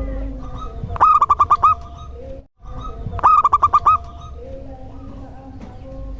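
Zebra dove (perkutut) singing: two cooing phrases about two seconds apart, each a quick run of about six clipped, pitched notes.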